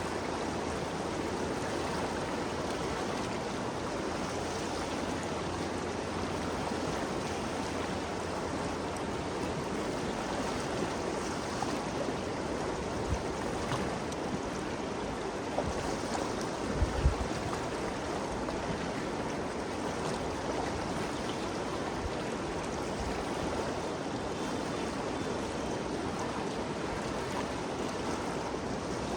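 The Ganges River flowing, a steady even rush of moving water. A brief low thump comes a little past halfway.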